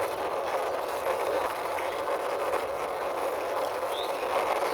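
Plastic wheels of a hand-pushed toy truck rolling steadily across a hard surface, a continuous rumbling hiss.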